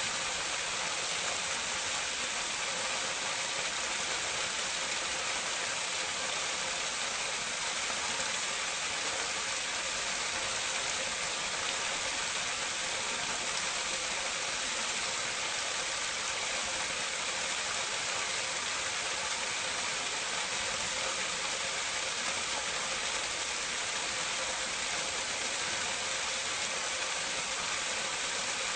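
Water pouring steadily into a drain or gully from a drainpipe, recorded up close: an even, unbroken rush and splash, bright and hissy.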